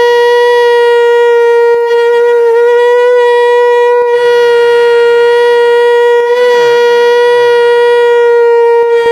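Conch shell (shankh) blown with buzzing lips, sounding one long, loud, steady horn-like note with a slight waver in pitch.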